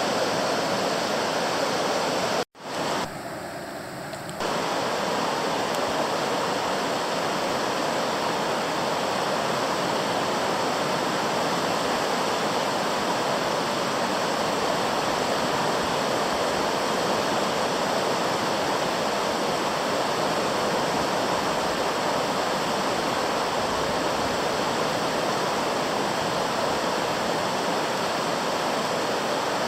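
River in flood rushing steadily, a dense, even sound of fast-moving water. It cuts out abruptly about two and a half seconds in, comes back quieter and thinner for about two seconds, then the full rush returns.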